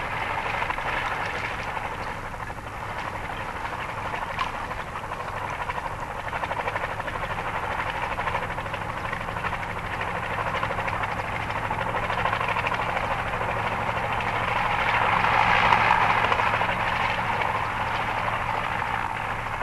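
Mi-8 helicopter's twin turbines and rotor running steadily while it hovers just above the ice. The noise grows loudest about three-quarters of the way through as the helicopter lifts off and climbs away, then fades a little.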